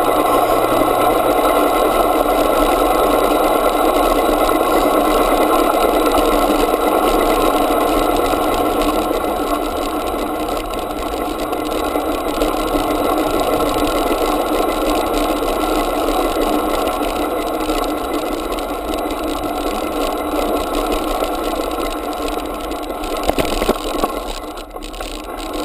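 Mini BMX bike rolling fast along a tarmac pavement, heard from on the bike: a steady rumble and rattle of tyres and frame. A few knocks near the end as it rides over rough, cracked paving.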